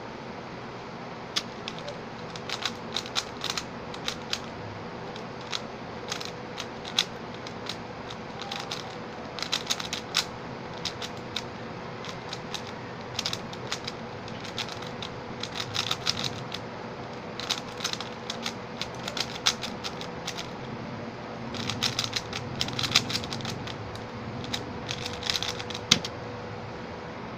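Xin Lexin stickerless 3x3 speed cube being turned fast during a timed solve: rapid plastic clicks of the layers in irregular bursts with short pauses between. Near the end a single sharp keyboard key tap stops the timer.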